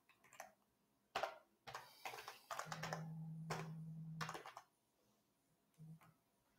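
Typing on a computer keyboard: faint keystrokes in uneven clusters as an email address is entered, then stopping. A low steady hum sounds for about a second and a half in the middle of the typing.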